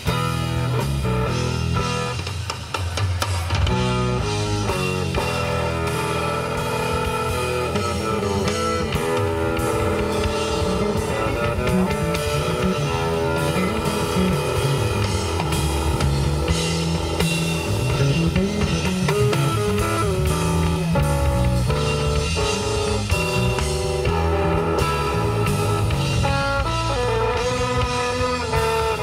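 A live rock trio playing together: electric guitar lines over bass guitar and a drum kit.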